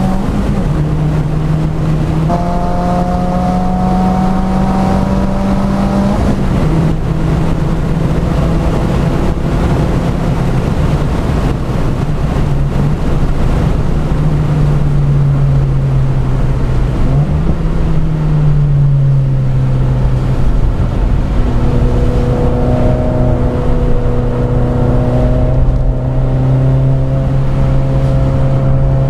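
Subaru WRX's turbocharged flat-four engine driving hard on a track, heard from inside the cabin; its pitch climbs slowly under throttle and drops sharply a few times at gear changes, over a steady hiss of road and tyre noise on wet asphalt.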